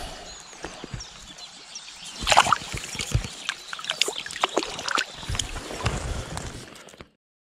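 River water splashing and lapping at the bank as a brown trout is released from the hand, with several sharp splashes. The sound cuts off abruptly near the end.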